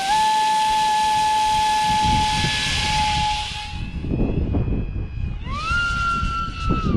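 Electric RC plane's Leopard 2060kv inrunner motor and 4.7x4.7 propeller at high power: a steady high whine with a hiss of prop noise as the plane is launched and climbs away, fading about four seconds in. The whine rises sharply again about five and a half seconds in, holds, and falls away near the end, with wind rumbling on the microphone.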